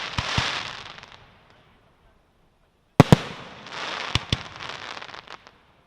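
Fireworks going off: aerial shells bursting with sharp bangs, each followed by a dense hiss that fades. Two volleys arrive, one at the start and a louder pair about three seconds in, with a few smaller reports just after, and a silent gap between them.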